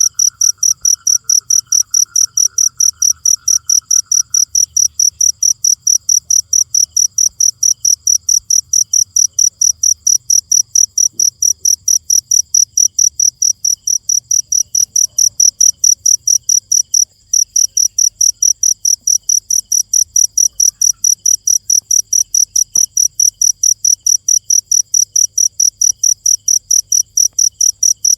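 Cricket chirping loudly and evenly, about three high-pitched chirps a second, with one brief break partway through. A fainter, lower insect trill runs beneath it and stops about four seconds in.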